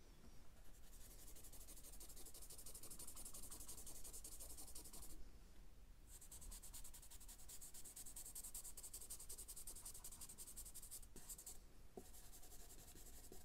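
A drawing pencil scratching across sketchbook paper in rapid shading strokes, soft and dry, with a pause of about a second some five seconds in and a few shorter breaks near the end.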